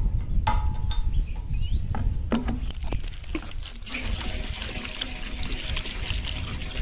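Liquid pouring from a plastic bottle through a plastic funnel into a tractor's tank, a steady trickle that sets in about four seconds in. Before it, a few clicks and knocks of the bottle and funnel being handled.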